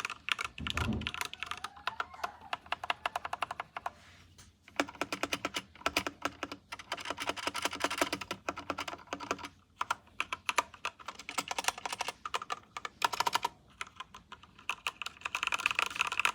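Fast typing on a HITIME XVX M61 60% mechanical keyboard with Gateron Yellow linear switches: rapid runs of keystroke clicks, broken by short pauses three times. A brief low thump about a second in.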